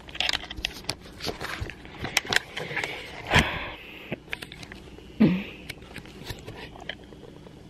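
Handling noise of a hand-held camera: clicks, scrapes and rubbing as it is moved and brushes against clothing and the couch, with one louder thump about three and a half seconds in and a short low falling sound a little after five seconds.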